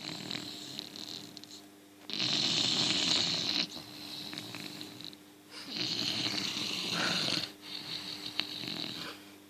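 English bulldog snoring in its sleep: two long, loud snores, one about two seconds in and another near six seconds in, with quieter snoring breaths between them.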